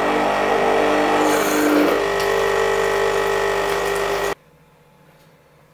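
Krups EA8260 espresso machine's pump running, pushing water through a newly fitted water filter and out of the steam nozzle into a jug to fill and rinse the filter. A steady hum with hiss that cuts off suddenly about four seconds in.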